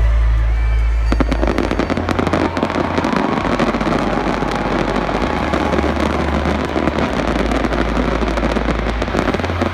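Aerial fireworks crackling: a dense run of many small pops and crackles sets in about a second in, over a heavy low rumble.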